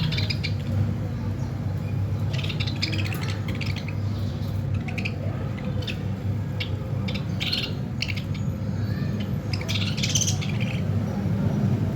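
Budgerigars chirping in short, scattered bursts of high calls, over a steady low rumble.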